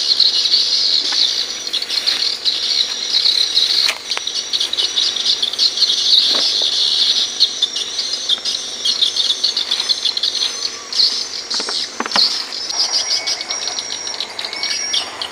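Loud, continuous chorus of insects from the riverside forest, a high-pitched, rapidly pulsing din, with a few faint knocks.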